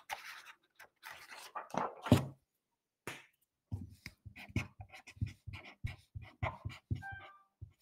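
Quiet rustling of paper as a fresh sheet is laid out. Then a marker scratches on paper in short, quick strokes, several a second, as writing begins.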